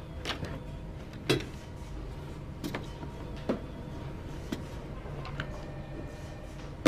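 Light, irregular knocks and clicks of office items being handled and dropped into a cardboard box, over a low steady hum.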